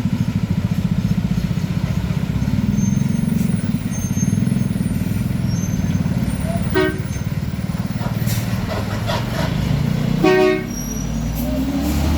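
A heavy truck's engine running loud and steady with a low pulsing rumble. A horn toots twice, briefly about seven seconds in and again, louder and about half a second long, near ten seconds. The engine note rises slightly near the end.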